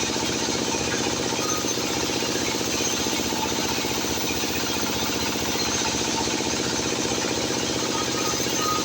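Sawmill machinery running steadily: a constant mechanical drone that stays even throughout.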